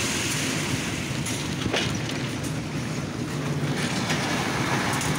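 Steady mechanical rumble of a machine engine running, with wind noise on the microphone.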